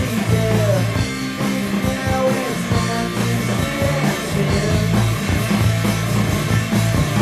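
Rock music with electric guitar and drums playing.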